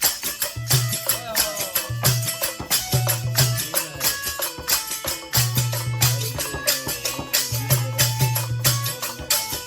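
Instrumental passage of a Rajasthani desi bhajan: a fast, even percussion beat under a melody that steps between held notes, with recurring low notes.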